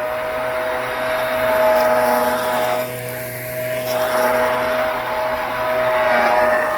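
Hoover High Performance Swivel XL Pet upright vacuum cleaner running at full speed just after being switched on: a steady motor whine over a rush of air, the rush dipping briefly about three seconds in.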